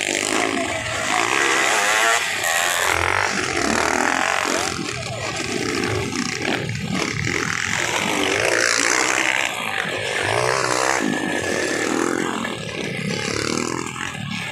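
Motocross dirt bike engines revving up and down as the bikes ride past on a dirt track, with crowd voices underneath.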